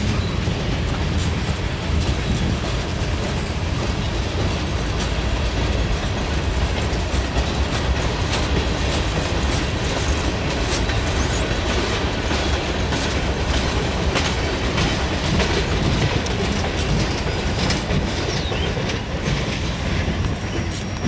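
Freight cars of a long CSX mixed manifest train rolling steadily past: a continuous rumble of steel wheels on rail, with frequent clicks as the wheels pass over the track.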